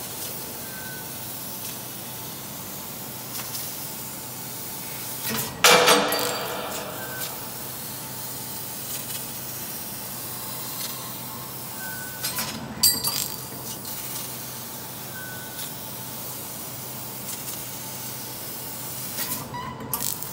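Fiber laser metal cutting machine at work: a steady hiss with short faint chirps every few seconds and occasional metallic clinks and clatters, the loudest about six seconds in.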